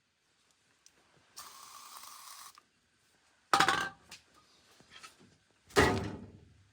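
A hiss lasting about a second, then two loud knocks, each ringing briefly as it dies away, with a few small clicks between them.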